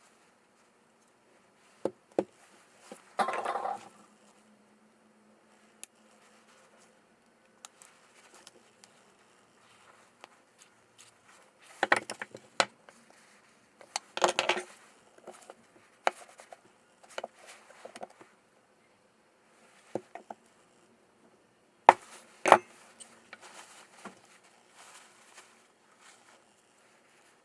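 Hand work on small scooter parts: scattered clicks and knocks of tools and parts being picked up and set down, with short bouts of scraping. There is a longer scrape about three seconds in, and clusters of louder knocks near the middle and again about four-fifths of the way through.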